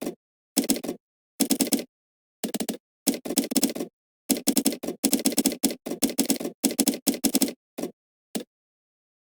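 Typing on a computer keyboard: quick runs of keystrokes with short silent gaps between them, stopping near the end.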